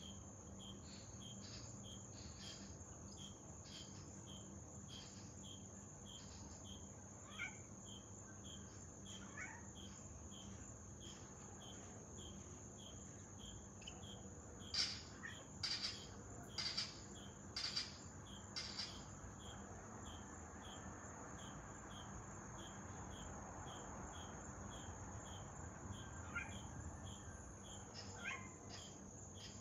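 Jamaican croaking lizard (Aristelliger praesignis), a gecko, calling: a series of five sharp, clicking croaks about a second apart around the middle, with a few fainter ones near the end. Crickets chirp steadily behind, about two chirps a second, over a high steady insect drone.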